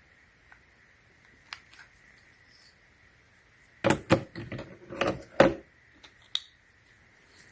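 A quick cluster of clicks and knocks about halfway through, with one more soon after: small hard objects being handled and set down.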